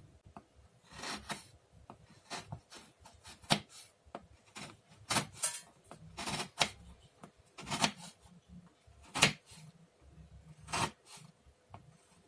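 Knife slicing a block of palm sugar (gula merah) into thin slices: short cuts repeating roughly once a second.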